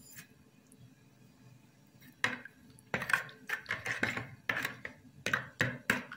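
A hand mixing sugar and yeast into milk in a plastic mixing bowl: a run of short knocks and splashy swishes starting about two seconds in.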